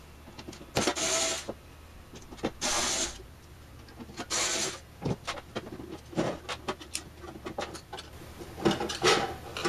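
Cordless electric screwdriver whirring in three short bursts of about half a second each as it backs screws out of the metal shield cage of an RF signal generator. From about five seconds in, a run of light clicks and knocks as the metal cage is handled and lifted off.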